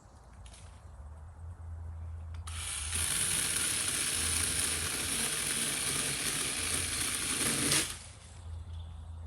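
Battery-powered mini chainsaw cutting into wood for about five seconds, starting and cutting off abruptly, with a dense rasping hiss.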